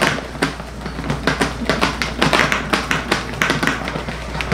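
Plastic salad spinner being worked by hand to spin washed lettuce dry: its mechanism gives a rapid run of clicks, about three a second and a little faster toward the end, that stops near the end.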